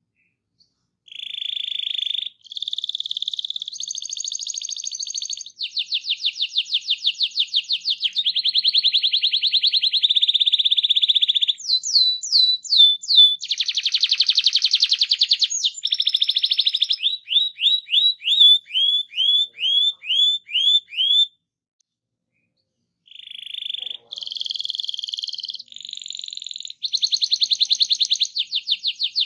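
Domestic canary singing a long, loud song of rapid trills and rolls, switching from one repeated phrase to the next every second or two. It breaks off for about a second and a half in the last third, then starts trilling again.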